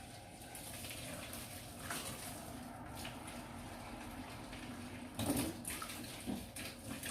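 Boiling water poured in a steady stream into a plastic bird feeder, with a brief clatter about five seconds in.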